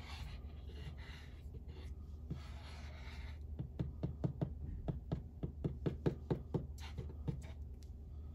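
A glue stick rubbed across cardstock, then tapped down in a quick run of dabs, about five a second, for roughly four seconds.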